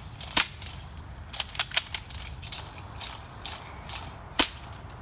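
Airsoft Mosin-Nagant bolt-action rifle: two sharp shots about four seconds apart, with clusters of clicks from the bolt being worked between them.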